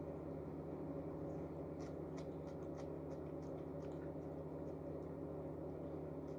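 A steady low hum with faint, scattered small clicks.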